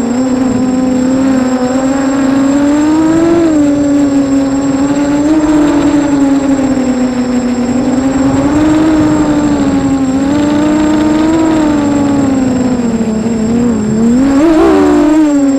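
FPV racing quadcopter's motors and propellers whining loudly, the pitch wavering up and down with the throttle; near the end it dips, then surges sharply higher.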